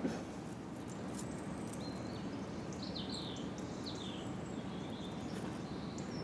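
Small birds chirping, a few short high calls and quick falling whistles clustered in the middle, over a steady low outdoor background noise.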